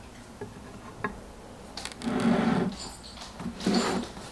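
Small objects being set down and shifted on a concrete tray on a wooden nightstand: a couple of light clicks, then a longer rubbing scrape about two seconds in and a shorter one near the end.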